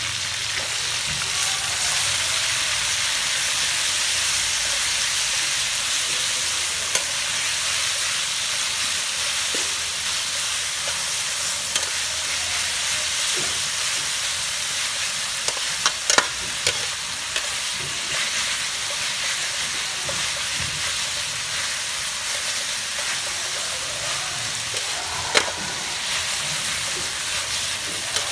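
Chicken and lemongrass stir-frying in hot oil in a metal wok: a steady sizzling hiss, with a metal spatula scraping through the food and knocking against the wok a few times, a cluster of knocks about halfway through and one more near the end.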